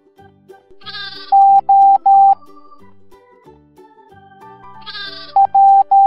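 Morse code beeps at one steady pitch, the loudest sound here: three long dashes spelling the letter O, each just after a cartoon sheep bleat. Near the end another bleat, then a short beep and two long ones begin the letter P. Light children's music plays underneath.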